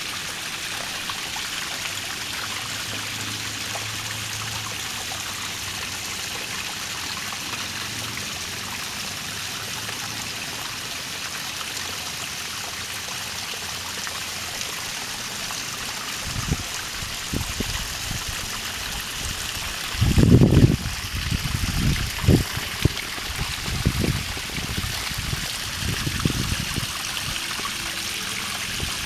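Small, shallow stream trickling and splashing steadily over rocks and bare earth: a thin dry-season flow. From just past halfway, irregular low thumps and rumbles come and go, loudest about two-thirds of the way in.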